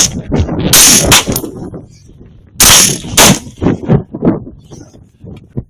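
Rifle shots fired in quick succession, in two clusters: several in the first second and a half, then another burst a little under three seconds in. Weaker cracks follow.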